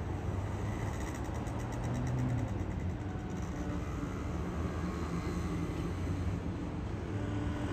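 Steady low engine rumble, with a faint fast ticking for a couple of seconds about a second in.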